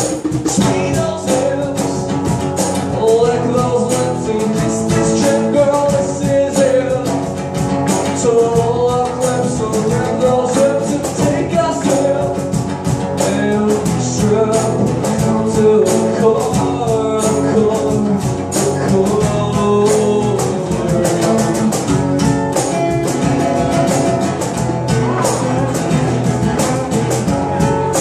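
Live acoustic guitar strummed steadily, with a voice singing a melody over it.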